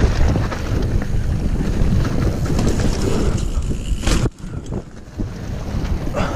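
Mountain bike running fast down a dirt trail: wind rushing over the camera microphone, with tyres rumbling and the bike rattling over the ground. A sharp clatter comes about four seconds in, followed by about a second that is much quieter before the rumble picks up again.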